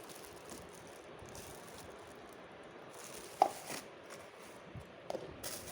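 Faint handling of ceiling fan parts, the fan's canopy cups, with one sharp knock about three and a half seconds in and a couple of softer ones near the end, over a low steady hiss.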